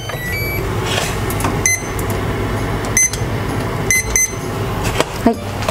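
Induction cooktop's control panel beeping: about six short electronic beeps as the back burner is switched on and its heat set, over a steady low hum.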